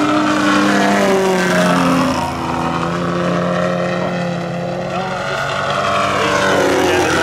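Engine of a giant-scale 108-inch Extra 330LT radio-control aerobatic plane running in flight, its pitch rising and falling as the throttle changes and the plane passes through its manoeuvres.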